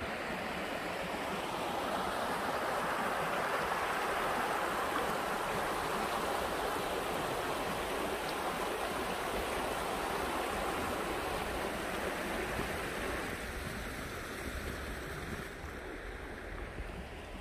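Shallow, rocky river flowing and rushing over stones in a steady wash of water noise, growing a little softer over the last few seconds.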